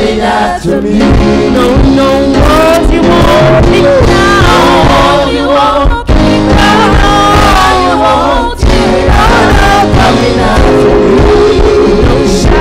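Church praise team, a man and several women, singing a gospel song loudly through microphones over sustained musical backing.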